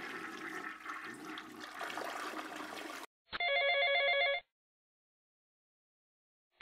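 A rushing noise for about three seconds. Then, about three seconds in, an electronic telephone ring: a warbling stack of tones that sounds once for about a second and stops.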